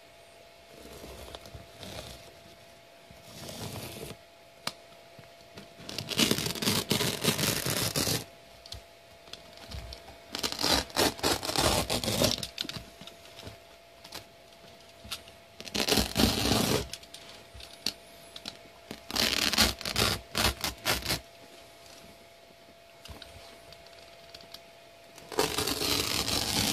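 Utility knife slicing through carpet backing in five rasping, tearing strokes of one to two seconds each. Before them come a couple of fainter scratches.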